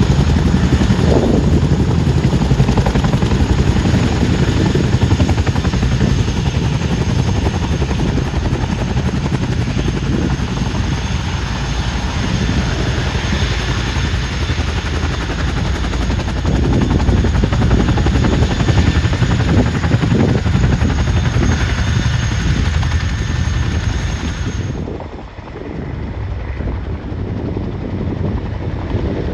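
Boeing CH-47 Chinook tandem-rotor helicopter running, its twin turboshaft engines giving a steady high whine over the low beat of the two rotors as it taxis. About 25 s in the sound drops abruptly and returns quieter and more distant as the helicopter lifts off.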